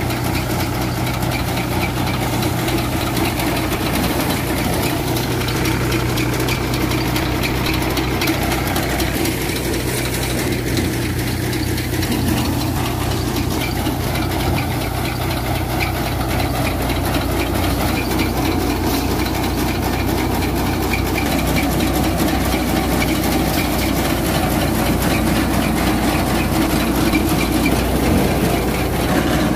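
Tractor-driven Dashmesh paddy thresher running: the New Holland tractor's diesel engine holds a steady note under the fast rattling of the threshing drum as paddy is fed through.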